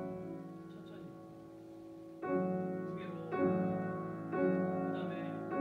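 Grand piano played slowly. A chord sounds at the start and dies away. From about two seconds in, chords are struck about once a second, each left ringing into the next.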